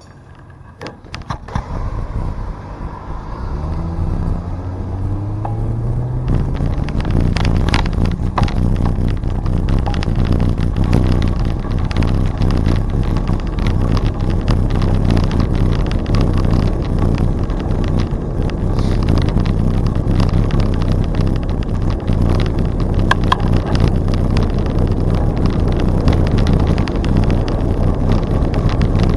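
Wind on the microphone and tyre noise from a bicycle riding on the trail. A rising hum builds over the first few seconds as the bike picks up speed, then settles into a steady rumble with many small clicks and rattles.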